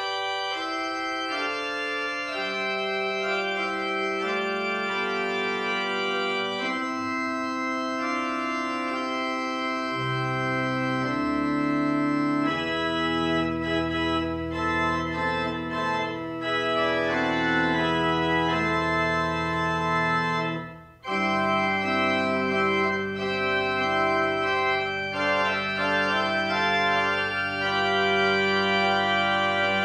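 Church organ playing a postlude after the benediction: slow, sustained chords that change every second or two, breaking off briefly about two-thirds through and then starting again.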